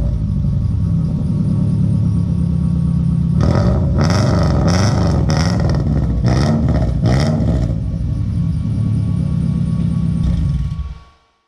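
Subaru EJ251 2.5-litre flat-four running at the tailpipe with an unsteady, wandering pitch and a few short rough bursts in the middle, then fading out near the end. The engine has ingested dirt and washed out a cylinder, leaving it with low compression.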